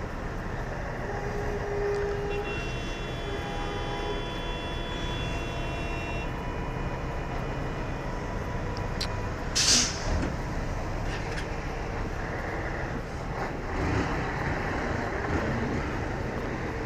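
Idling traffic heard up close from a stopped motorcycle: the engines of a city bus and a truck running steadily, with a short hiss of compressed air from an air brake about ten seconds in.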